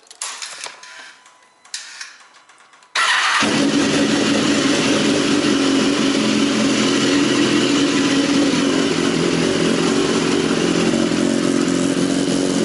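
A BMW S1000RR's inline-four engine starts about three seconds in after a few faint clicks, then idles steadily. This is its first run on fresh oil after an oil and filter change.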